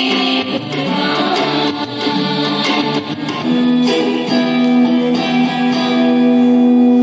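Live band music with guitar and keyboard, heard from the audience, playing an instrumental passage after a brief bit of women's singing at the start; a long held note sustains through the last few seconds.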